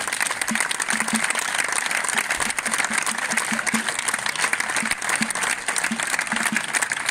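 An outdoor audience applauding, dense, steady clapping that holds at an even level throughout.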